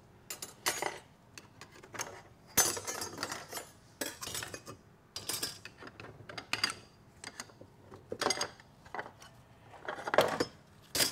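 Steel clutch plates and a screwdriver clinking and scraping against a TH350 transmission case as the second-gear (intermediate) clutch pack is pried out and lifted free: irregular metallic clinks and scrapes with a few sharper clanks.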